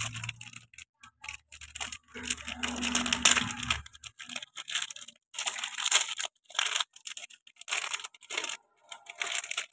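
Plastic snack wrapper being torn open and crinkled by hand, in irregular crackling bursts as a croissant is pulled out of the packet.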